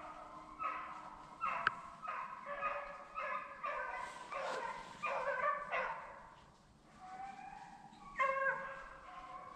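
A pack of beagles baying on a rabbit track, many voices overlapping in quick repeated calls that often drop in pitch. There is a sharp click nearly two seconds in, and a short lull about two-thirds of the way through before the baying picks up again.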